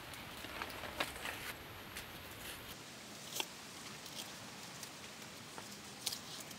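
Hands pressing and smoothing wet mud plaster onto a stick-frame wall: soft pats and scrapes with a few sharp small clicks.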